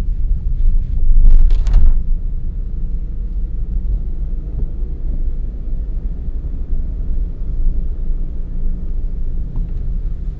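A car driving along a road, its low, steady rumble of tyres and engine, with a brief louder rushing noise about a second and a half in.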